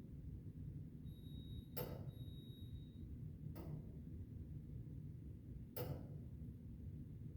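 Dublin pedestrian crossing signal ticking slowly while the light is red, one sharp click about every two seconds over low traffic rumble. This is the waiting signal before the crossing changes. Two short high beeps sound between the first two clicks.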